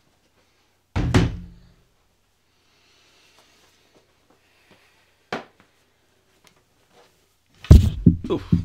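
Knocks and thumps in a small room: one heavy thump about a second in, a single sharp knock past the middle, then a cluster of loud, low, close bumps near the end.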